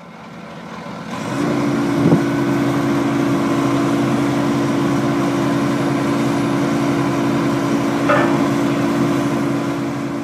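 Excavator's diesel engine running steadily. It fades in over the first second or so, with a short knock about two seconds in and a brief higher sound about eight seconds in.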